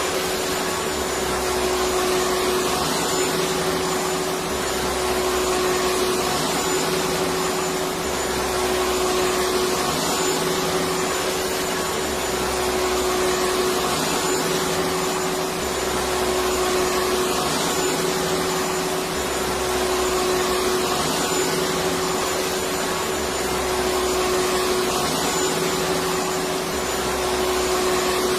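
Electric vacuum cleaner running steadily: a continuous whooshing hum with a constant tone, and a low pulse that repeats every couple of seconds.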